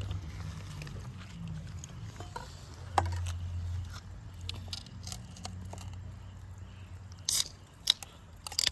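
A cleaver chopping a barracuda into steaks: one sharp chop about three seconds in and a quick run of crunching cuts near the end, over a low steady hum.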